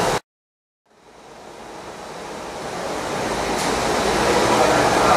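Steady rushing machine noise from a running Ross double planetary mixer driven by a 5 HP motor. It cuts out abruptly just after the start, then fades back in and builds over the next few seconds to a steady level.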